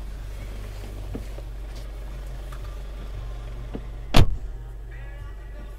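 Stationary car idling, heard inside the cabin as a steady low hum, with a single loud sharp knock about four seconds in and a few faint clicks.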